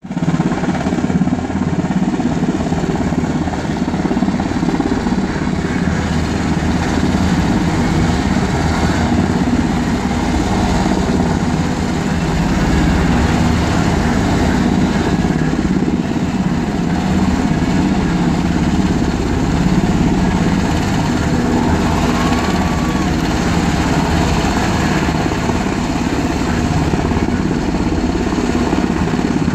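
UH-60 Black Hawk helicopter hovering close by: its rotor and twin turboshaft engines make a loud, steady noise that does not let up.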